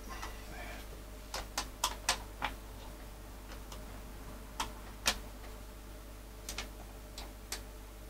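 Irregular sharp clicks and ticks of a hand screwdriver working the screws of a Fein MultiMaster's plastic housing: a quick cluster of about five, then a pair, then about four more near the end. A faint steady hum lies underneath.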